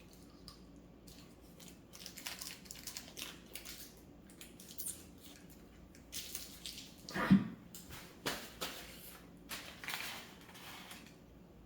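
Crunching bites and chewing of crispy breaded fast-food chicken fries, with scattered crackles and rustles of handling the food. One louder, brief sound comes about seven seconds in.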